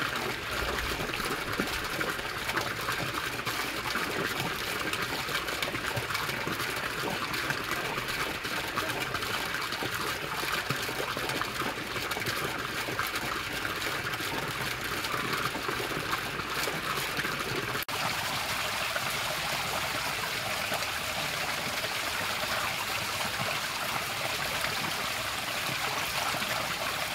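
Garden fountains running with a steady splashing of water. First a single arcing jet from a stone pillar splashes down; after an abrupt cut about two-thirds of the way in, a dome-shaped water-bell fountain pours into its pool.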